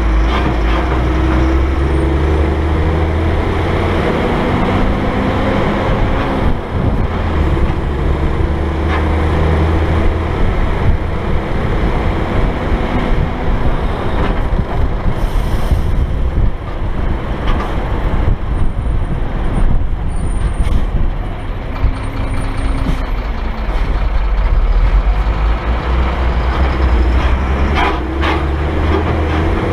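Dump truck's diesel engine running as it drives along a highway, with road and wind noise over a camera mounted outside on the truck; the engine note shifts now and then.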